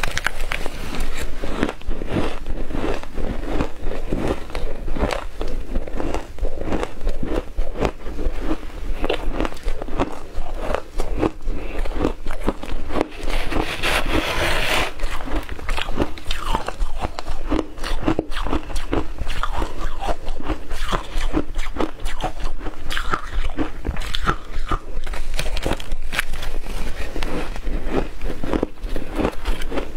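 Shaved ice being bitten and chewed close to the microphone: a dense, continuous stream of crisp crunches, brighter and sharper for a moment around the middle.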